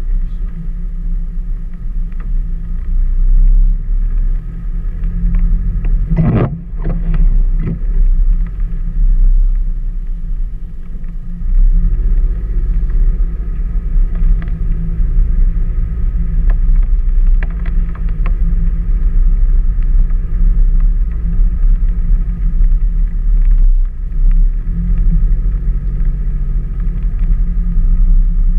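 A car driving, heard from inside the cabin: a steady low rumble of engine and road noise, with a brief louder noise about six seconds in.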